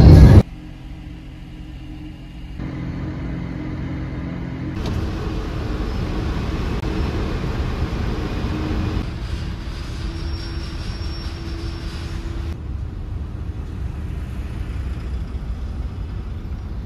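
Vehicle engine and road rumble heard from inside a camper van's cab, a steady low hum in short clips that change abruptly every few seconds.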